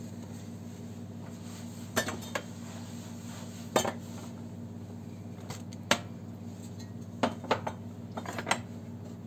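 Plates, bowls and utensils knocking and clinking as they are handled on a kitchen counter: a scattering of short, sharp clinks, about eight in all, starting about two seconds in.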